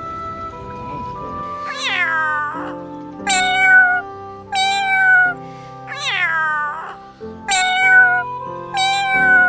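A domestic cat meowing five times, each call starting high and falling in pitch, over background music with held notes.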